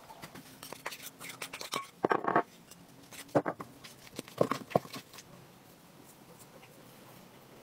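Food-preparation handling sounds: a dense scraping crackle about two seconds in, then a few sharp clicks of a wooden spoon knocking and scraping in a glass bowl of mashed potato. Only faint rustling follows in the last couple of seconds.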